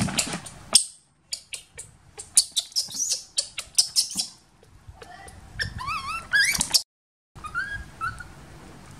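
Baby macaque calling. First comes a quick run of short, high chirping squeaks, then, about five seconds in, a few wavering squeals that rise and fall in pitch. These cut off suddenly, and a couple of shorter squeals follow near the end.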